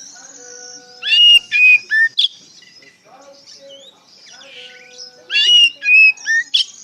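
Oriental magpie-robin singing two phrases of loud, clear whistled notes, each of about four notes with short slides in pitch, over a constant high twittering.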